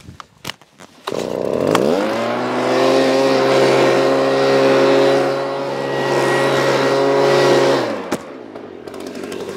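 Handheld leaf blower spinning up about a second in, then running steadily at full speed as it blows dust off the roof deck, and winding down just after eight seconds.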